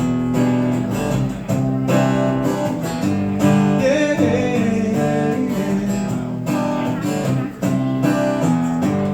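Acoustic guitar strummed in a steady rhythm, an instrumental break between verses of a slow blues song.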